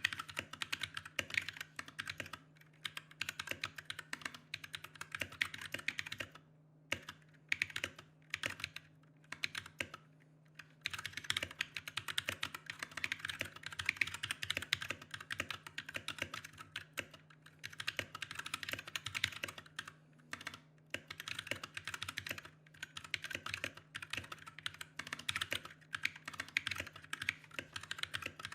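Typing on a Massdrop Alt mechanical keyboard fitted with stock, unlubed Glorious Panda tactile switches: a rapid run of keystroke clacks, broken by brief pauses about six and a half, ten and twenty seconds in.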